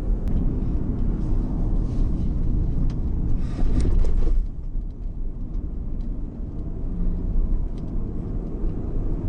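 Steady low rumble of a moving car, engine and tyres on the road, heard from inside the cabin. It grows louder about halfway through, then drops back to a quieter rumble.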